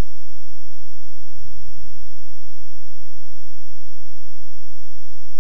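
Steady low electrical hum with a thin high whine above it, and a brief low sound about a second and a half in.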